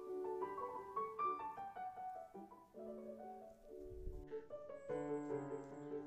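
Background piano music: a run of single held notes and chords.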